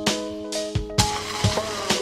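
Background music with a steady drum beat and held notes. About a second in, the track changes and gliding notes come in.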